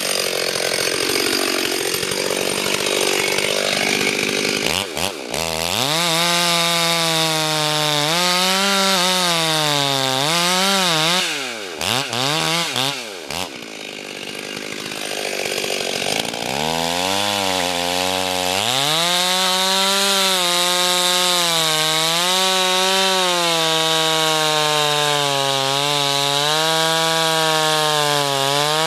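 Two-stroke chainsaw cutting into a poplar trunk, its engine pitch rising and sagging as the chain bites. About twelve seconds in it drops back briefly, then revs up again and holds a steady high pitch under load.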